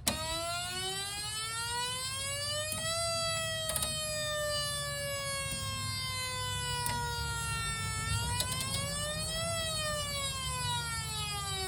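Whelen Vortex R4 siren's electronic tone board playing its wail tone. It is a slow siren glide that rises for about three seconds, falls slowly until about eight seconds in, rises again and falls once more.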